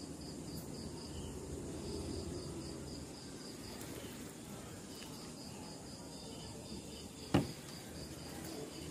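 Faint high-pitched chirping in short regular runs, several chirps a second, over a low background rumble, with a single sharp click about seven seconds in.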